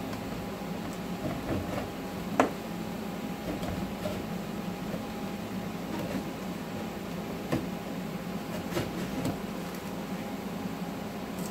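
Metal hive tool scraping and knocking on a slotted wooden hive panel as beeswax cross comb is pried off. There is one sharp click about two seconds in and a few lighter ones later, over a steady low hum.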